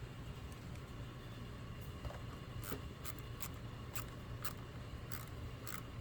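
Hand tools working on a car battery terminal as the negative cable is reconnected: faint, irregular metallic clicks and light scrapes over a low steady hum.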